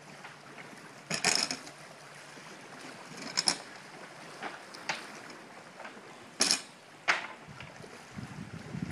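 A handful of sharp, irregular knocks and clanks as dock parts (a wooden board and the dock's rails) are handled and fitted together at the water's edge.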